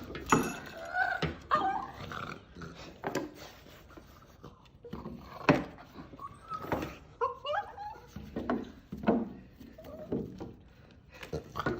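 A dog making short whining and grumbling calls that bend up and down in pitch, with scattered knocks in between.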